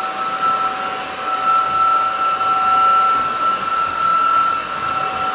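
Onson A10 Pro cordless stick vacuum running steadily: a high motor whine over the rush of air, vacuuming up spilled oatmeal and cereal.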